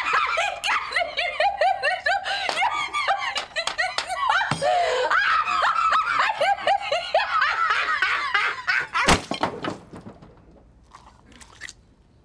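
A woman laughing loudly in fast, repeated peals for about nine seconds, then a single thud as her face goes down into a cream cake on the table, after which it falls almost quiet.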